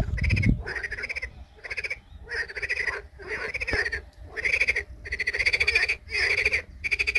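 Frogs croaking in chorus: a steady string of rattling calls, each under a second long, following one another at about one to two a second.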